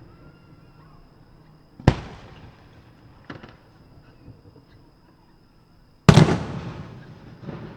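Aerial firework shells bursting: a sharp bang about two seconds in and a smaller pop a little later. Near the end comes the loudest bang, whose rumbling echo dies away over more than a second, followed by another lesser burst.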